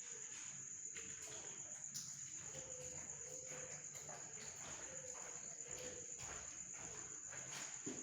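Faint, steady high-pitched insect trill, with a few soft ticks.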